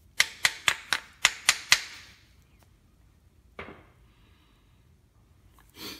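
A quick run of seven sharp taps, about four a second, then two single knocks: the outer brake pad being tapped home onto a Ford F-150 rear brake caliper so its retaining clips seat fully against it.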